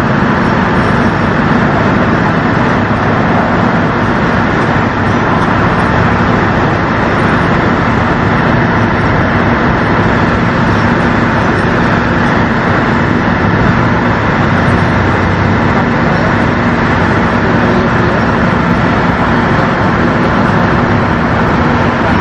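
Steady engine noise: a constant low hum from a running motor, over an even wash of traffic-like noise, unchanged throughout.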